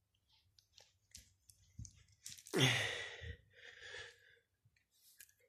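A short, breathy blow of air about two and a half seconds in, falling in pitch at its start, with a softer one a second later, among faint clicks and rustles.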